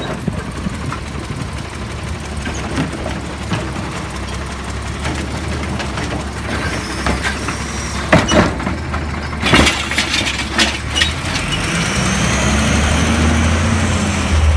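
Automated side-loader recycling truck running steadily while its mechanical arm handles a plastic wheeled cart at the curb, with several sharp clunks of cart and gripper about eight to ten seconds in. Near the end the engine revs up and settles back down as the arm works.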